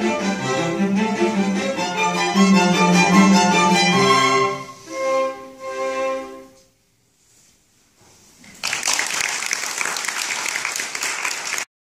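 String quartet of two violins, viola and cello playing the closing bars of a Christmas carol arrangement, ending on two short chords about five and six seconds in. After a brief silence, audience applause starts and runs until it cuts off abruptly.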